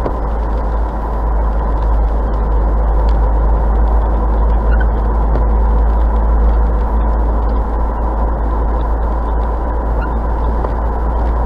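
Steady road and engine noise inside a car driving at about 50 km/h, heard through a dashcam's microphone, with a heavy low rumble.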